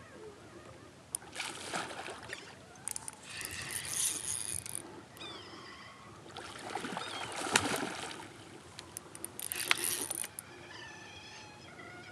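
Four bursts of splashing and rattling noise, each a second or two long, while a large hooked smallmouth bass is fought on a bent rod from a kayak. Birds chirp faintly between the bursts.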